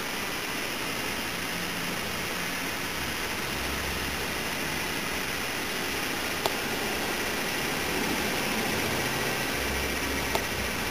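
Steady hiss of background noise with a low rumble swelling twice, and two brief faint clicks.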